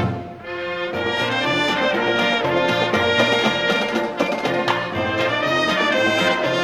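High school marching band playing a march, brass and drums together. A sharp accent opens it, the sound drops back briefly, and the full band comes in again about a second in.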